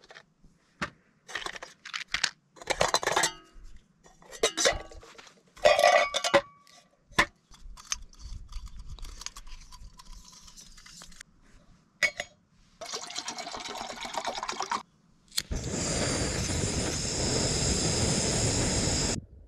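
Metal camp mug and nested cup clinking and rattling as a cook kit is unpacked and a burner is screwed onto a gas canister, with a brief hiss about two-thirds of the way through. Then a click, and a backpacking canister stove under a pot burns with a loud, steady hiss for about four seconds.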